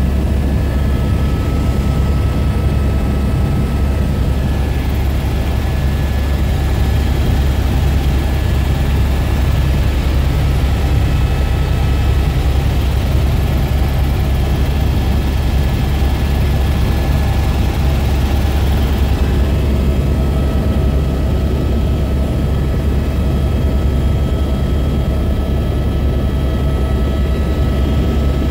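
Helicopter cabin noise in level flight: a loud, steady low drone with a few faint high steady tones over it, heard from inside the cabin.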